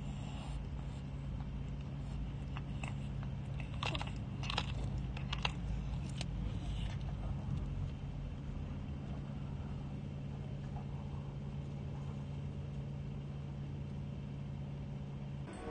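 A cat chewing raw fish, short crunching clicks of teeth on fish over a few seconds, stopping once it walks away. A steady low hum runs underneath.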